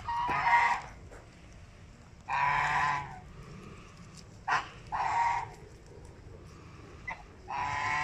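Domestic white geese honking repeatedly: a series of nasal calls, some short and some drawn out for over half a second, every second or two.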